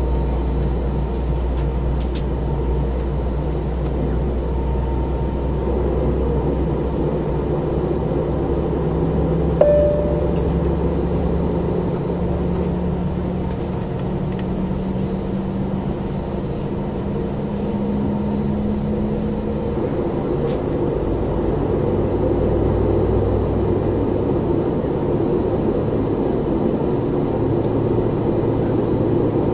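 Airbus A321 passenger cabin on the ground: a steady rush of air and machinery, with a low tone slowly rising in pitch from about nine seconds in to about twenty. A deep hum underneath stops about twelve seconds in, and a single sharp click sounds near ten seconds.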